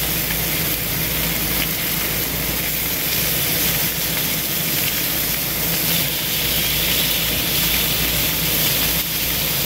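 Boneless chicken thighs sizzling steadily on a hot Blackstone 22-inch griddle as they are turned over with metal tongs, over a steady low rumble.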